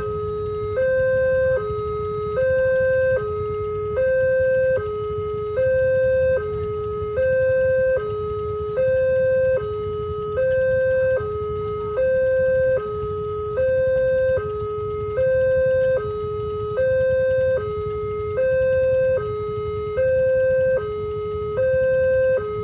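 Railway level-crossing warning siren sounding a steady two-tone hi-lo alarm, switching between a higher and a lower tone about every 0.8 seconds, with the higher tone the louder.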